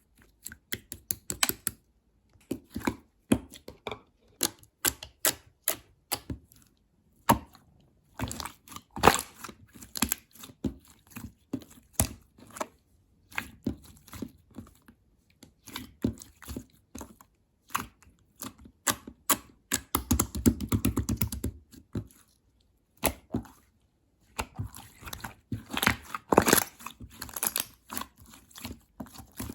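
Slime being squeezed, stretched and folded by hand, making quick sticky clicks and pops in bursts. About two-thirds through there is a thicker run of crackling.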